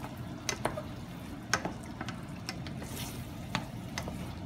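A spatula stirring ground beef and peas in brown gravy in a stainless steel skillet, its edge tapping and scraping the pan at irregular intervals over a low steady background.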